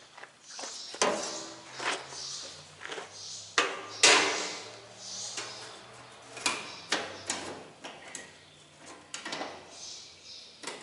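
Covers and shields going back onto a John Deere 336 small square baler: a string of irregular clanks and knocks, the loudest about four seconds in.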